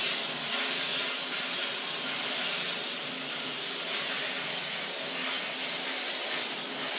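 Kärcher DE 4002 steam cleaner jetting steam from its nozzle onto floor and wall tiles: a steady hiss.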